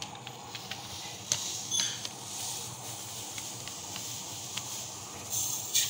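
Dry idli rava (coarse rice grits) pouring from a plastic packet into a steel tumbler, a grainy hiss, with a few clicks from the packet and tumbler and a louder rush near the end.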